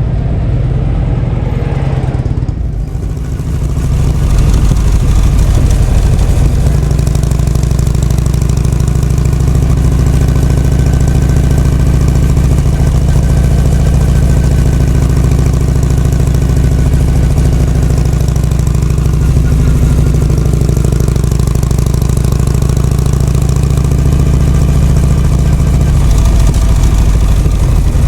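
Harley-Davidson Shovelhead FLH V-twin engine running steadily at a low, even speed, its engine freshly repaired of an abnormal noise and being broken in. The engine comes in loud about three seconds in.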